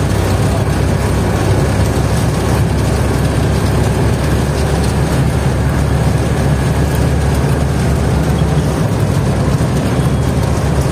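Bus engine running steadily at cruising speed, heard from inside the cabin: an even, low hum with road noise and no change in pace.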